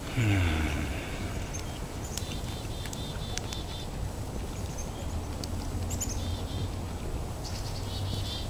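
Small wild birds chirping in short runs of quick high notes, several times over. Near the start there is a brief low hum from a person, falling in pitch, as he chews.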